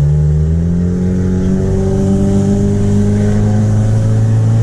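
Ford Focus engine running loud with part of its exhaust removed, giving a raw, unmuffled sound. The car is gently accelerating: the engine's pitch rises over the first couple of seconds and then holds steady.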